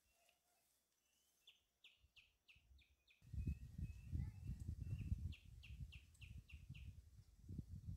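A songbird singing two phrases, each a quick run of about six falling chirps, over a low, uneven rumble that starts about three seconds in.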